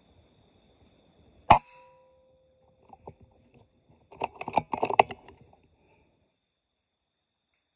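An air rifle fires once about a second and a half in, a sharp crack with a brief metallic ring after it. About three seconds later comes a quick run of clattering and rustling lasting about a second.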